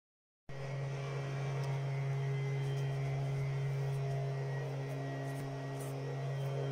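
A steady low hum that starts about half a second in and holds one unchanging pitch, with a few faint light rustles.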